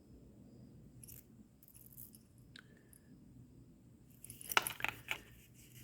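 Handling of a pocket watch on its metal chain and leather slip: a few faint light clicks, then a louder flurry of clicks and rustling about four seconds in.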